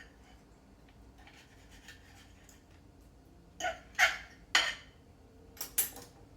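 A knife cutting through a smoked stuffed chicken breast, scraping against the surface beneath in five short strokes in the second half, the loudest about four seconds in.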